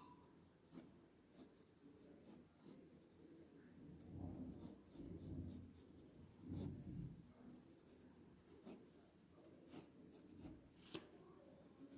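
Quick sketching strokes scratching on paper: short, faint, irregular strokes of a drawing tool, with a soft low rubbing of the hand on the paper between about four and seven seconds in.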